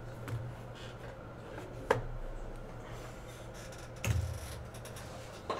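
A sharp click about two seconds in and a heavier knock about four seconds in, from things handled at a desk, over a steady low electrical hum.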